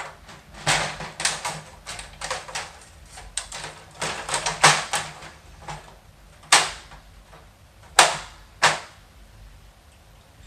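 Irregular clicks and knocks of computer parts being handled and fitted: a Macintosh II logic board, chips and case being worked on by hand. There are many light taps and scrapes, with the sharpest knocks about six and a half and eight seconds in.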